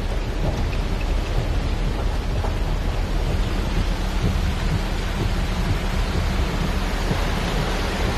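Heavy rain beating steadily on a car's roof and windows, heard from inside the cabin, over a constant low rumble.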